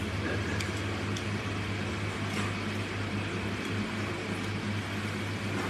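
Steady low machine hum with room noise, and a few faint clicks of chopsticks against a ceramic bowl.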